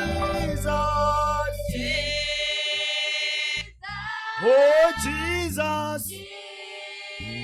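Choir music: voices singing a slow gospel song in held notes over a low accompaniment, with a brief break about four seconds in.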